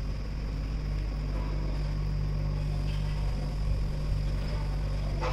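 A steady low hum with a faint background hiss, and a few faint brief sounds over it.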